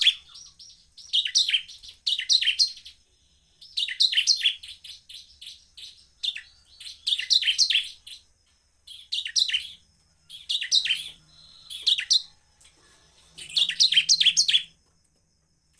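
Bar-winged prinia (ciblek) singing in short bursts of rapid, high chittering notes, one burst every second or two.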